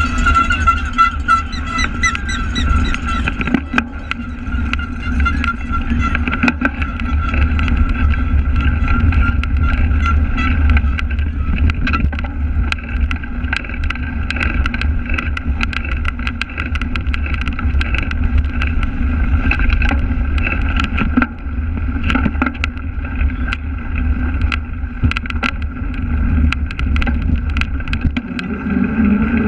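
Ride noise picked up by a bike-mounted camera in a pack of cyclocross racers: a steady low rumble of wind and tyres on the microphone, with frequent knocks and rattles from the bike going over bumps.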